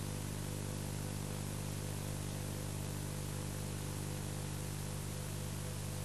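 Steady electrical hum with a layer of hiss, unchanging throughout.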